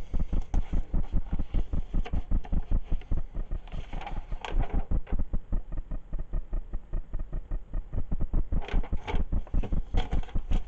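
Rapid, even thumping, about seven dull knocks a second.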